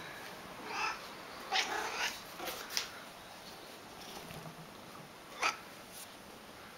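Domestic cat meowing in a quick run of short calls, then once more near the end, while being offered tuna. A single sharp click comes about two-thirds of the way through.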